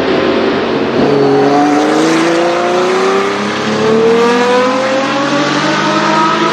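Porsche 917 racing car's flat-12 engine under hard acceleration. Its pitch drops abruptly about a second in, then climbs steadily for the rest.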